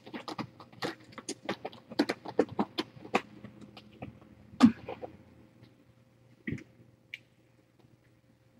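A quick run of light clicks and taps for about five seconds, with the loudest knock near the end of the run, then two more single clicks a second or two later.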